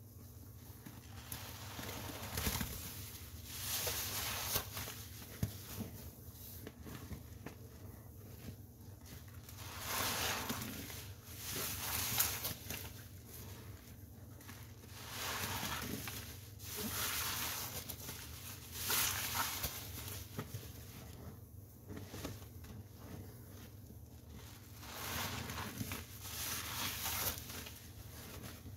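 A wet, soapy sponge being squeezed over and over, each squeeze a sudsy squelch of water and foam, roughly one every two seconds.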